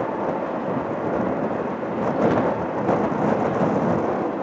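Jet airliner engines heard as a steady rough noise with no distinct tone, a little louder around the middle.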